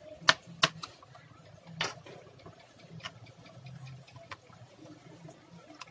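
Sharp clicks and taps from a screwdriver and small laptop parts being handled while a daughter board is fitted: two loud clicks in the first second, another near two seconds in, then a few fainter ticks.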